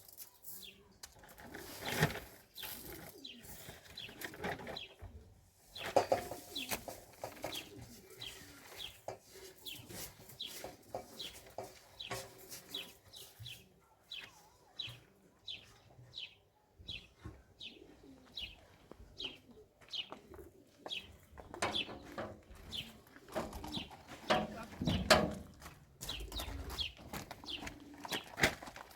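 Birds chirping in a quick repeated series of short high calls, about two or three a second. A few louder knocks and clatter come through now and then.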